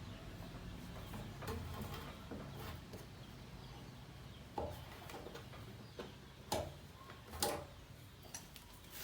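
A few light clicks and knocks, likely tools or metal parts being handled, the sharpest about halfway through and twice more near the end, over a faint low hum that fades early on.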